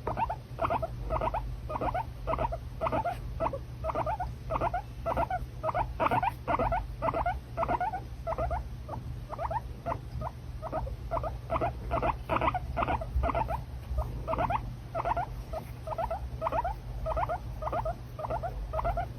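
Guinea pig squeaking in a steady run of short calls, about two or three a second, over a low steady hum.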